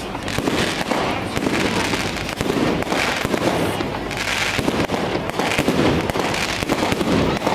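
Aerial fireworks bursting in quick succession: a dense, continuous run of bangs and crackles.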